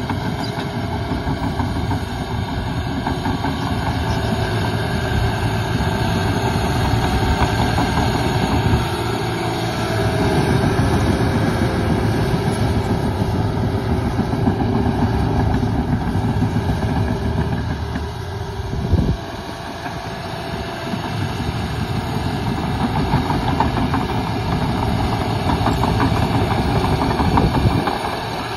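John Deere 700K crawler dozer's diesel engine running under load as it pushes fill dirt with its blade, with the clatter of its steel tracks. A single brief loud knock comes about two-thirds of the way through, after which the sound is a little quieter.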